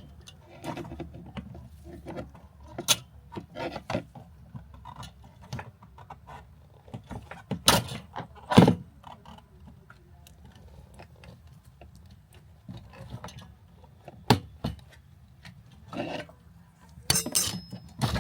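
Hands working a fuel line's plastic quick-connect fitting loose from the top of a fuel pump: scattered clicks, knocks and rattles, with a few louder knocks.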